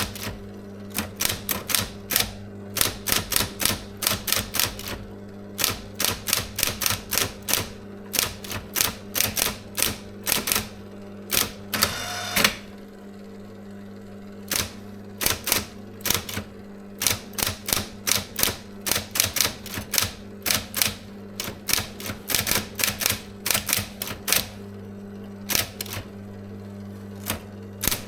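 SIGMA SM 7800 K electric typewriter being typed on, its typebars striking in quick irregular runs of several keystrokes a second over the steady hum of its motor. About twelve seconds in there is a half-second mechanical whirr, followed by a short pause in the typing.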